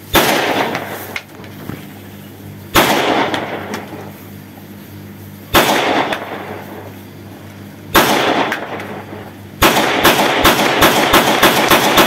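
A pistol fired into the air: four single shots a couple of seconds apart, each followed by a long echo, then a rapid string of shots in quick succession for the last few seconds.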